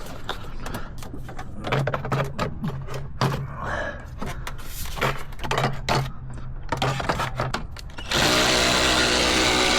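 Clicking and clattering of tools and parts during the radiator fan fitting, then a cordless power tool runs for about two seconds near the end.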